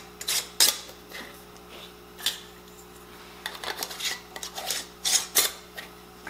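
Metal screw bands being twisted finger-tight onto filled glass Ball mason jars: scattered scraping and clinking of the metal rings on the jar threads and lids, the sharpest clink just over half a second in. A faint steady low hum runs underneath.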